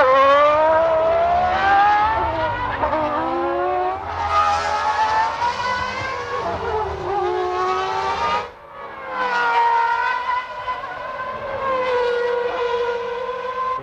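1996 Formula One car engines running at high revs. The pitch climbs and falls repeatedly as they accelerate and shift, with a brief lull about eight and a half seconds in.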